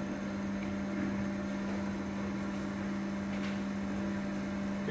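A steady hum holding one constant low tone, with fainter steady tones above it, over even background noise.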